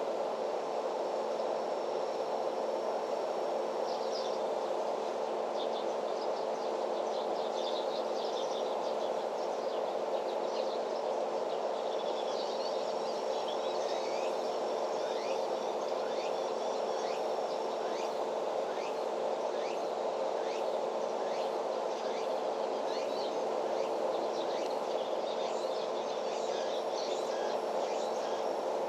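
Outdoor ambience of birds chirping in short, quick calls, busier in the second half, with a high thin insect trill coming and going, over a steady low hum.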